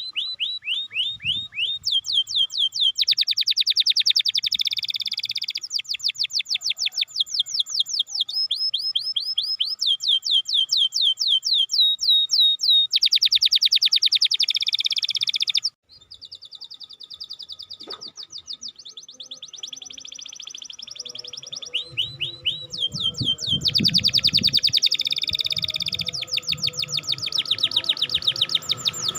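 Domestic canary singing: fast rolling trills of repeated down-sweeping notes, changing phrase every few seconds. The song cuts off abruptly near the middle and resumes, with a low rumble underneath in the last third.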